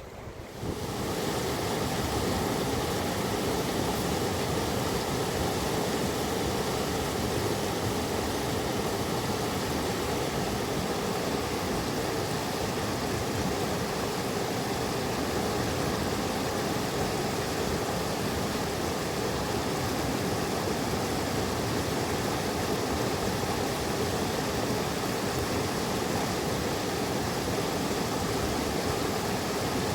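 Mountain river rushing, a steady even noise of running water that comes in about half a second in.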